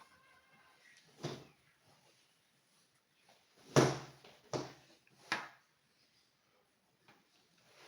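Four separate knocks or clunks of something being handled or set down, the loudest a little under four seconds in.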